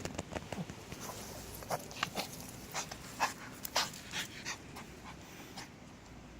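A dog rolling and rubbing itself in dirt, with a string of short, irregular scuffing and breathing sounds that die down about four and a half seconds in.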